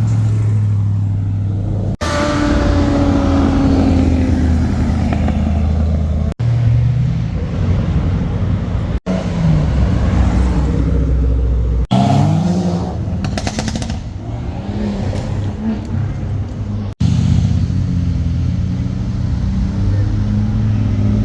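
Car engines revving and accelerating, pitch climbing and falling with each rev, in a series of short clips that cut abruptly from one car to the next.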